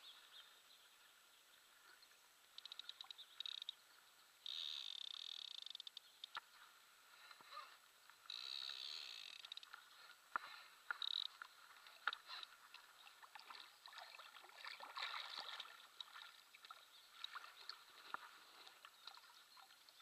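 Spinning reel clicking and buzzing in short bursts while a hooked wels catfish is played on the line, with faint water lapping and splashing around the boat.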